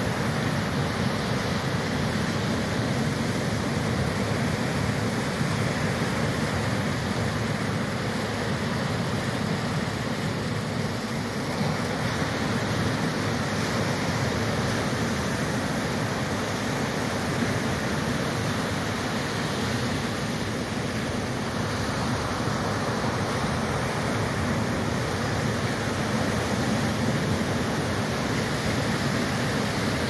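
Ocean surf breaking and washing up a sandy beach, a steady rushing with little rise and fall.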